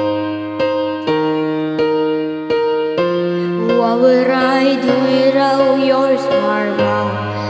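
Piano accompaniment playing evenly repeated chords, with a boy's singing voice coming in about three and a half seconds in.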